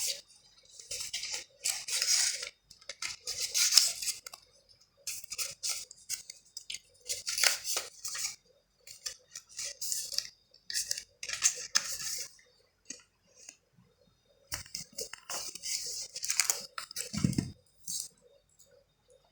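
Packaging being handled during a phone unboxing: irregular bursts of crinkling and rustling, like plastic wrap and the box being handled, with a soft thump about 17 seconds in.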